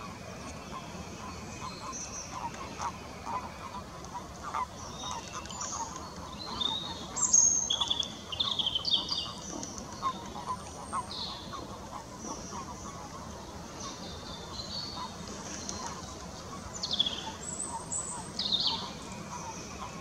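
Common toads croaking in a pond during spawning, short calls repeated many times, with songbirds chirping and whistling over them. The loudest bird calls come about a third of the way in and again near the end.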